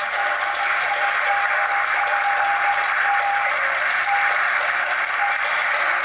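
Audience applauding over the dance music, which goes on underneath with short repeated high notes.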